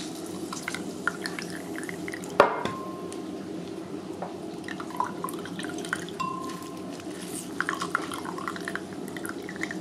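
Orange juice dripping and trickling into a glass as an orange is squeezed by hand over it, in many small scattered drips. A single sharp knock about two and a half seconds in is the loudest sound.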